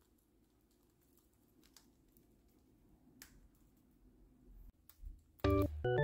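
A few faint, sparse clicks of a cockatiel's beak cracking seeds and tapping the floor over a low hum. Near the end, much louder keyboard music starts.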